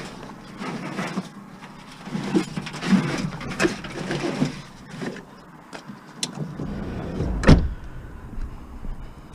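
Scrap appliance being handled and loaded, metal knocking and rattling, with one heavy thump about seven and a half seconds in.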